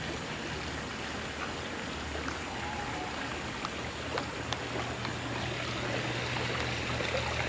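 Steady water noise with a low hum underneath and a few faint light splashes as a duck bathes and paddles in a swimming pool.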